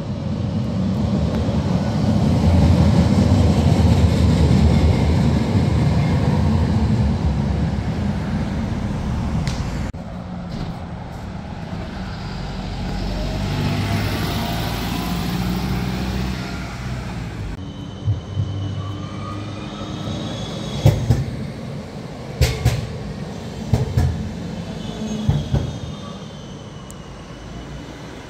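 City buses and a tram passing on the street. There is a heavy low rumble of a passing vehicle for the first several seconds, then a bus driving by. Near the end a tram approaches with several sharp clacks and a faint high squeal.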